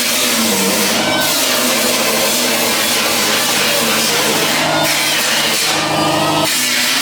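A power tool running continuously on car body metal, its pitch wavering as it loads up, with a shift in the sound near the end.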